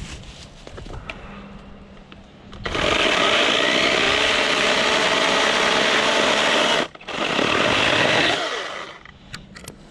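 Greenworks Digipro 40V brushless cordless chainsaw running at full speed for about four seconds, cutting out for an instant, then running again for over a second before winding down.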